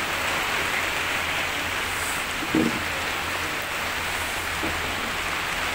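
Steady hiss of heavy rain, over a low steady hum, with a brief faint call-like sound about two and a half seconds in.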